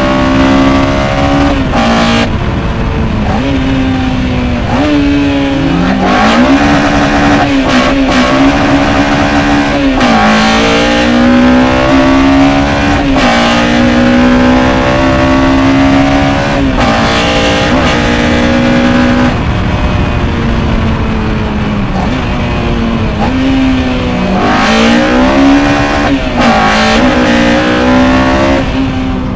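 Honda K20 four-cylinder engine on individual throttle bodies in an Integra Type R DC2, heard from inside the cabin while being driven hard. The engine note climbs with the revs and drops at each gear change, several times over, with the intake noise strong under load.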